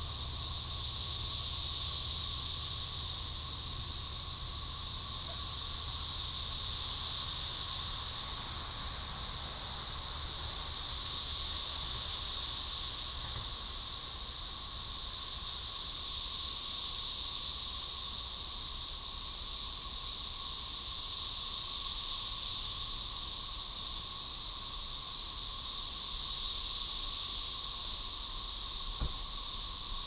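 Chorus of Cassini 13-year periodical cicadas (Magicicada tredecassini): a dense, high-pitched buzz from many males that swells and fades together about every five seconds as they synchronize their calls.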